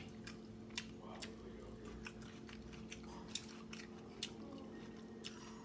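A person chewing grilled chicken close to the microphone: irregular short smacking clicks, one or two a second, over a steady low hum.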